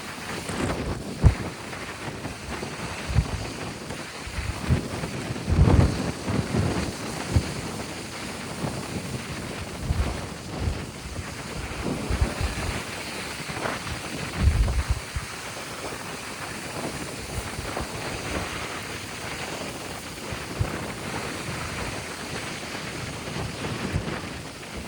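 Wind buffeting the microphone in irregular low gusts, over a steady wash of surf from a choppy sea.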